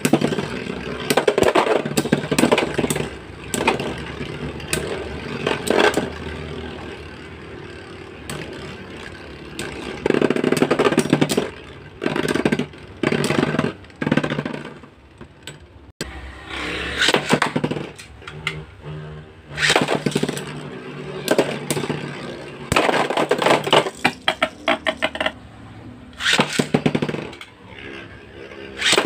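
Two metal-wheeled Beyblade spinning tops, Lightning L-Drago 100HF and Burn Phoenix 135MS, whirring and scraping around a Beyblade stadium, clashing again and again with sharp clicks and grinding bursts.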